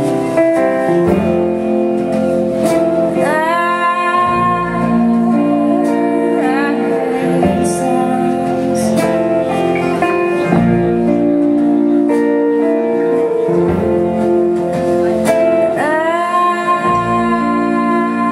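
Live band playing an instrumental stretch of a country-folk song: guitar chords under a lead line that slides up into a long held note twice, about three seconds in and again near the end.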